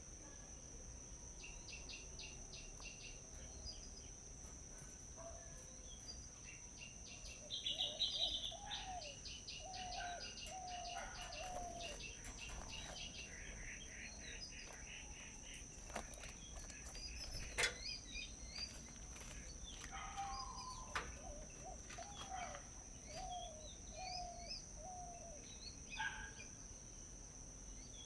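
Several wild birds chirping and calling over a steady, high-pitched insect drone. Twice, a bird gives a run of four or five lower, rising-and-falling notes. The loudest moment is a burst of chirping about 8 seconds in.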